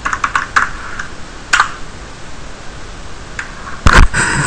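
Computer keyboard keystrokes: a quick run of key clicks as the end of a command is typed, then a single sharper key press about a second and a half in, the Enter key running the command. Near the end comes a louder, deeper thump.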